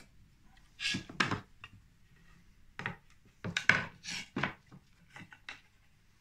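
Wooden workpieces knocking and clattering against each other and the bench as a wooden glazing bar and a block of wood are handled: a run of about nine irregular knocks.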